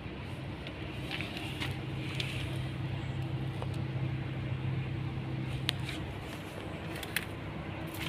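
A steady low mechanical hum, like a motor or engine running, with a few light clicks. The lowest part of the hum drops away about six seconds in.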